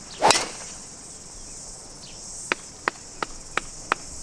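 Driver striking a golf ball off the tee: one sharp crack about a third of a second in, over a steady high-pitched insect drone. About two seconds later comes a run of seven evenly spaced sharp clicks, roughly three a second.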